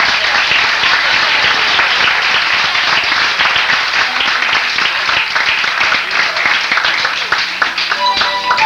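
Audience applauding, a dense patter of many hands clapping. Music begins near the end.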